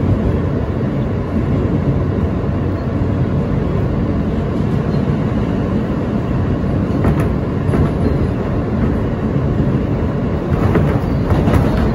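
R160A-2 subway car running along the track with a steady, loud rumble of wheels on rail. A few sharp wheel clicks over rail joints come about seven seconds in and again in a cluster near the end.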